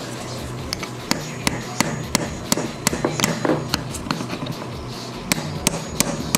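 Hammer tapping a steel pin punch to drive the pivot pin out of a Celica GT-S pedal, in steady sharp strikes about three a second with a short pause a little past the middle.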